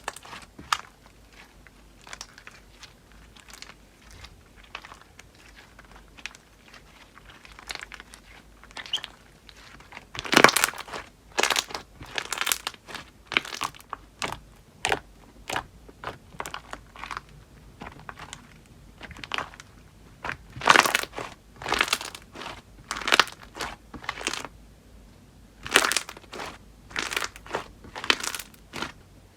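Slime being squeezed, pressed and stretched by hand, making irregular crackling, crinkly bursts with quieter gaps between them. A few of the bursts are louder than the rest.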